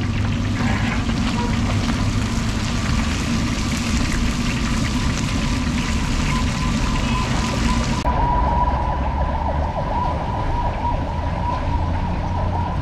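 Fish deep-frying in a large wok of hot oil, sizzling and crackling steadily, with a steady thin high whine running through it. About eight seconds in the sound changes abruptly: the sizzle turns duller and the whine stronger.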